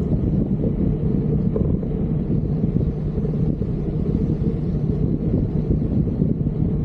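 Wind buffeting the camera's microphone on a moving bicycle: a steady, rough low rumble.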